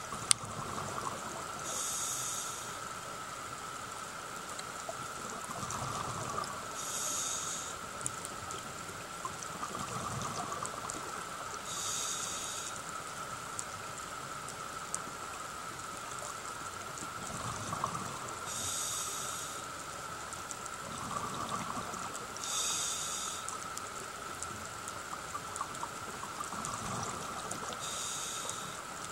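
A scuba diver breathing through a regulator underwater: a short hiss of each breath in, about every five seconds, and a bubbling rush of each breath out in between.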